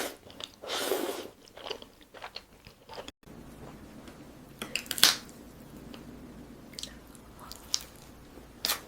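A person biting and chewing crunchy food up close, a string of short crisp crunches and mouth sounds, with a brief dropout about three seconds in.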